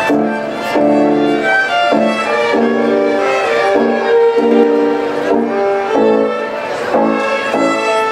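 A small ensemble of children playing violins together, bowing a tune in phrases of short and held notes.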